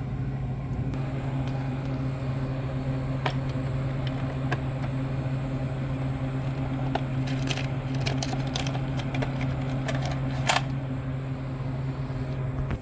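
A steady machine hum, with scattered light clicks and small rattles over it; the hum cuts off abruptly at the end.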